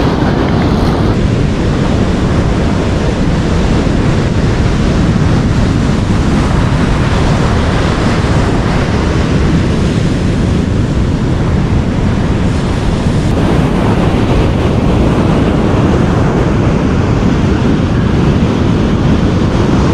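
Rough ocean surf breaking on a beach, a steady heavy wash, with wind buffeting the microphone.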